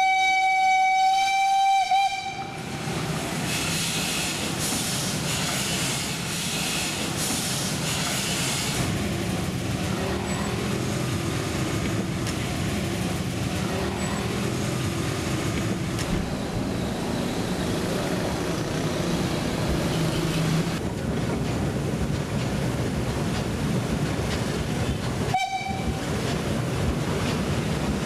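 A train's whistle sounds one long single-pitched blast, and then the train runs on with a rhythmic beat for a few seconds that settles into a steady rolling rumble. A short second whistle blast comes near the end.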